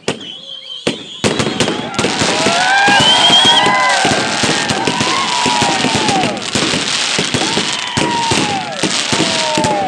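A fireworks battery going off: after a quieter first second, a dense, continuous run of rapid bangs and crackles, with many whistles rising and falling over it.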